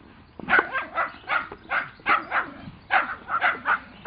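Miniature schnauzer puppy barking at cattle across a fence: a fast run of about ten short, sharp yapping barks, two to three a second, starting about half a second in.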